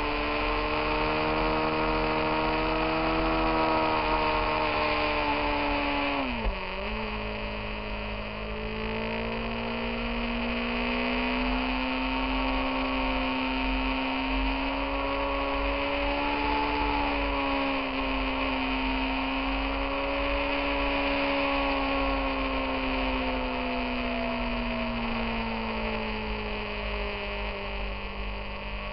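Motorcycle engine heard from the riding bike itself, a steady drone whose pitch rises and falls with the throttle through the curves. About six and a half seconds in, the note drops sharply with a short click and picks up again lower down, as at a gear change. Steady wind and road noise run under it.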